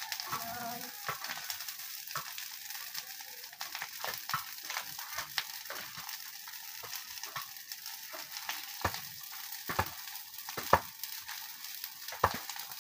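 Brush pile of dry branches and leaves burning, a steady crackling hiss with many sharp pops, the loudest a little past ten seconds in and again near the end.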